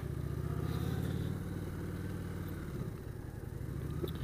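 Motorcycle engine running with a steady, fast pulse as the bike pulls away at low speed, easing off slightly about three seconds in.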